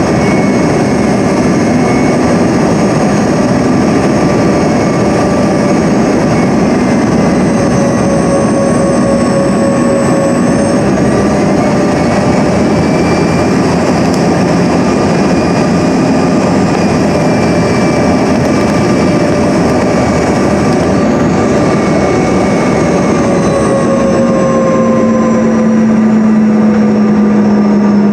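Cabin noise inside a CRJ-200 regional jet on final approach: the steady rush of airflow and the rear-mounted General Electric CF34 turbofans, with several steady whining tones on top. A few seconds before the end the higher tones slide slightly lower and a low hum grows louder.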